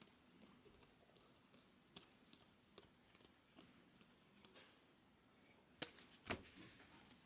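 Near silence with faint scattered clicks and flicks of a stack of baseball cards being thumbed through by hand, and two sharper taps about six seconds in.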